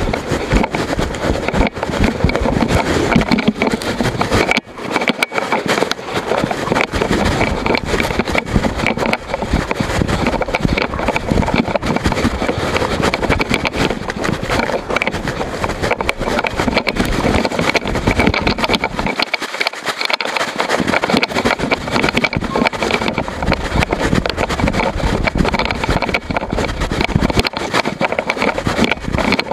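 A camera hanging loose from its broken mount on a mountain bike, rattling and knocking without pause as the bike rides over rough trail.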